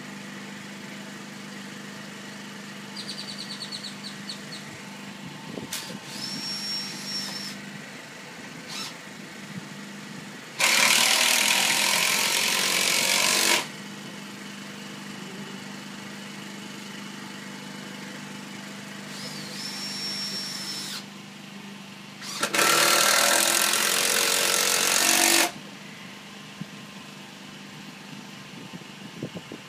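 A power tool running in two bursts of about three seconds each, about ten seconds apart, over a steady low hum. A thin high whine comes a few seconds before each burst.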